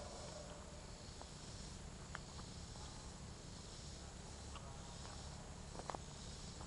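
Footsteps on a leaf-strewn dirt forest trail: a few soft, irregular steps with a sharper snap near the end, over a steady faint high hiss.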